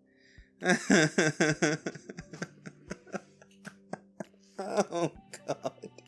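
A man laughing in disbelief: a burst of rapid, pulsed laughter about a second in, a shorter burst near the five-second mark, and quiet catches of breath in between.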